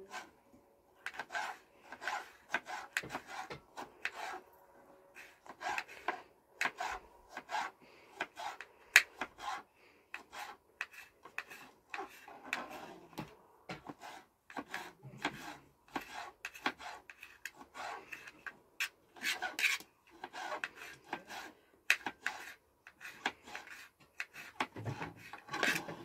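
Repeated hand scraping or rubbing strokes on a hard surface, irregular, about one or two a second, with a few sharper knocks among them.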